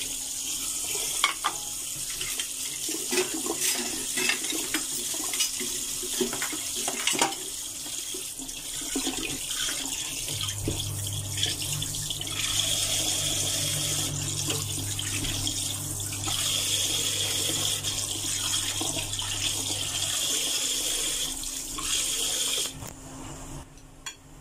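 Kitchen tap running into a steel sink while crockery is rinsed under it, with occasional knocks and clinks of plates and bowls. The water shuts off near the end.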